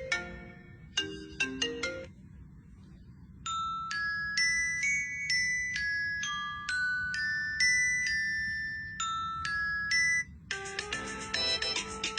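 Electronic ringtone tunes. A quick plucked-sounding melody stops about two seconds in, and after a short pause a high, bell-like chime melody plays. About ten seconds in, a busier tune with a low bass line starts.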